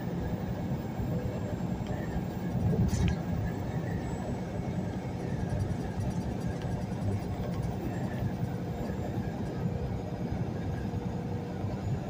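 Semi truck cruising at highway speed, heard from inside the cab: a steady low rumble of diesel engine and tyre/road noise. A single short knock about three seconds in.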